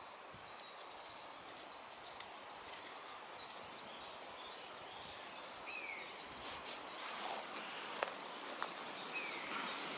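Woodland birdsong: several birds giving repeated high chirps and trills, with a few short falling whistles in the second half, over a soft steady hiss. A single sharp click about eight seconds in.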